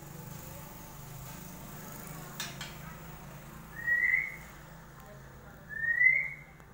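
Two short rising whistles, each about half a second long and about two seconds apart, over a steady low hum.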